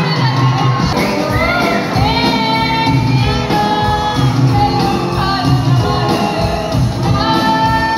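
Live band playing a song: a woman singing into a microphone over keyboard and drums, heard through a hall's sound system.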